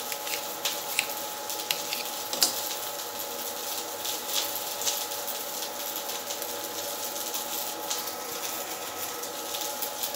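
Kitchen knife clicking against a steel plate while a chilli is sliced: a run of sharp ticks in the first couple of seconds, then a few scattered softer ones. A steady hum runs underneath.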